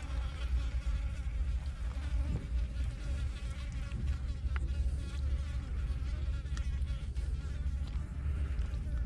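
Flies buzzing steadily close by, a low fluttering drone, with a few faint wet clicks of fish being handled in mud.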